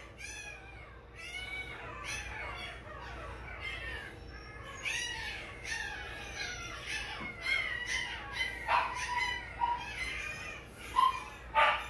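Week-old XL American Bully puppies squealing and whining: many short, high-pitched cries, mostly falling in pitch, overlapping one after another, with a few louder ones near the end.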